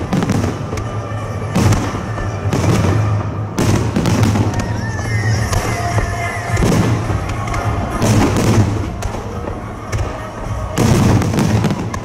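Fireworks display going off: a string of booms every second or two over continuous crackling.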